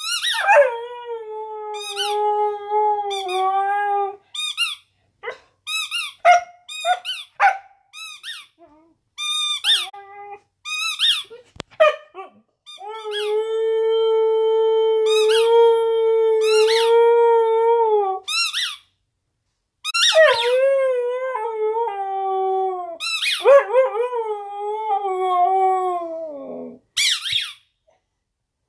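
Husky howling in three long wavering howls, the last one sliding down in pitch as it ends, with shorter yips between them. A rubber squeak toy is squeaked again and again in short bursts over and between the howls; the howls are her call for the toy.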